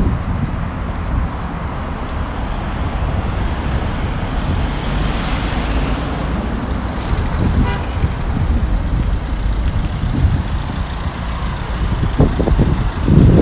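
Road traffic at a signalled junction: car engines and tyre noise passing, with a short pitched beep about eight seconds in. It grows louder near the end as a van passes close by.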